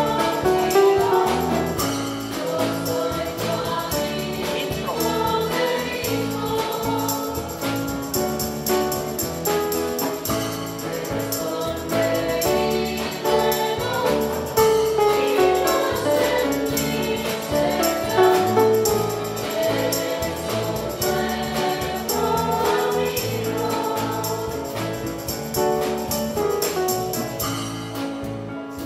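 A church music group singing a hymn in chorus, backed by acoustic guitars, a drum kit keeping a steady beat, and a violin.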